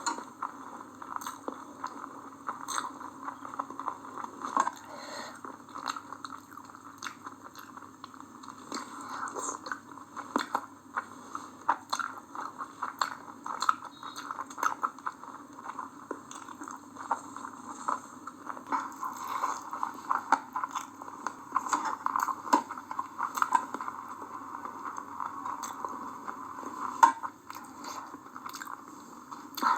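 A person chewing and biting chicken biryani and chicken leg pieces, with frequent wet smacks and small crunches, and one sharp louder click near the end.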